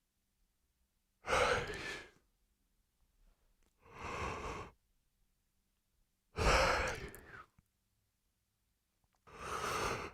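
A run of yawns, four breathy exhalations about a second long each, spaced a couple of seconds apart with dead silence between.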